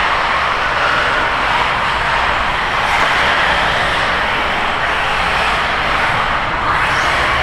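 Several 1/8-scale radio-controlled buggies racing, their motors making a loud, steady buzz that echoes through the indoor hall.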